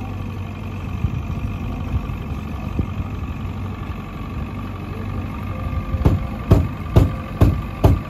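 Boat motor running steadily with a constant hum. From about six seconds in, a run of regular thumps comes in at about two a second and is louder than the motor.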